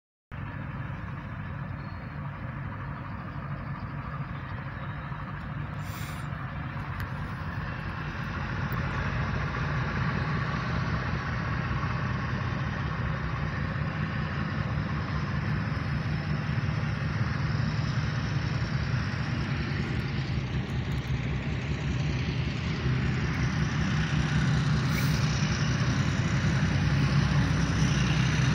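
Diesel engine of a PHA-20 diesel-electric locomotive approaching slowly: a steady low rumble that grows gradually louder.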